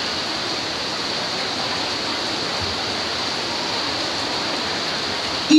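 Heavy rain pouring steadily. Right at the end, a voice suddenly begins a loud, long held note of Qur'an recitation.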